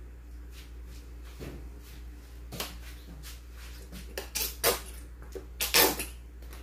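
Plastic squeeze bottle of yellow mustard being squeezed, spluttering out in several short, sharp spurts that grow stronger, the loudest near the end.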